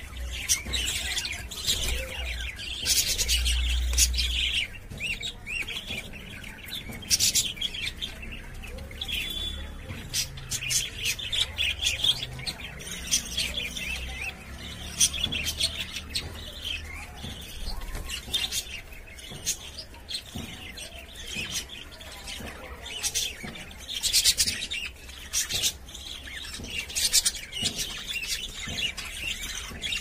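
A flock of budgerigars chirping and chattering, with a steady stream of short, high, overlapping calls.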